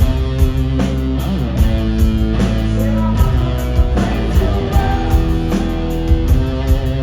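Live rock music from a blues-rock duo: an electric guitar playing chords over a steady drum beat, with no vocals.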